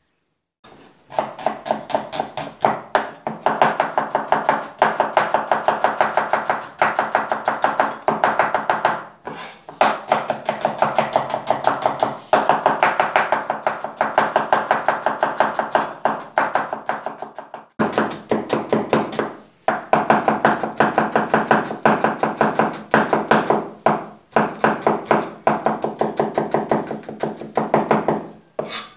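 Chinese cleaver rapidly chopping red onions on a bamboo cutting board: fast, even knocks of the blade on the wood, with a few short pauses.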